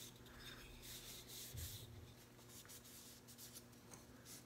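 Faint rubbing of a cloth rag wiping walnut oil onto a small walnut box, in several soft strokes, with a soft bump about one and a half seconds in. A low steady hum runs underneath.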